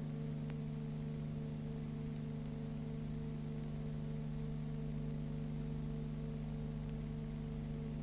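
Steady electrical hum over constant hiss, with a few faint ticks and no other sound: the background noise of a silent cine film's transfer.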